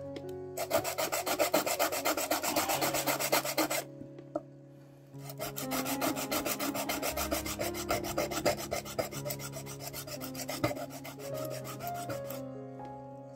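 Coarse sandpaper rubbed rapidly back and forth on a diecast model car part, flattening its surface so two parts will meet. It goes in two spells with a pause of about a second between them, over background music.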